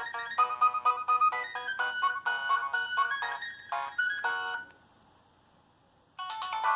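Preloaded ringtones of a Nokia 6225 phone: a quick electronic melody of short notes stops a little past halfway, and after about a second and a half of quiet the next ringtone begins.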